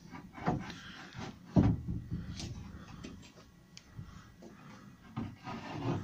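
Beech boards being stood up on edge on a bench: a few separate dull wooden knocks with some rubbing between them as each board is set down, the loudest about one and a half seconds in.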